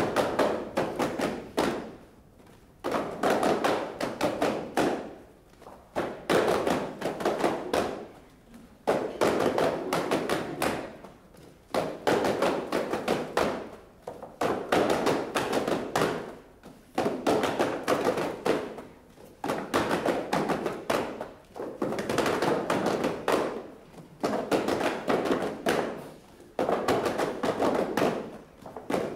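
Small cardboard packets shaken and tapped by several people at once, in repeated bursts of rapid knocks about two seconds long, coming roughly every two and a half to three seconds.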